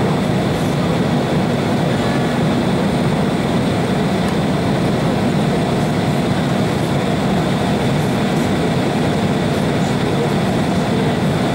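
Steady cabin noise of an Embraer 190 airliner descending toward landing: its General Electric CF34-10E turbofans and the rushing airflow, an even, dense rumble with faint steady high tones over it.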